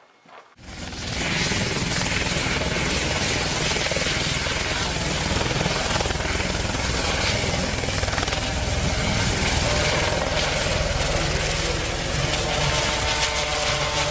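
Eurocopter EC120 light turbine helicopter flying low: steady rotor and engine noise with a thin, high turbine whine, starting abruptly about half a second in.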